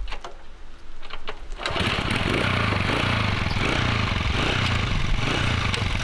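A few clicks, then about two seconds in the small engine of a motorized bicycle starts and runs, its sound swelling and easing in a steady rhythm.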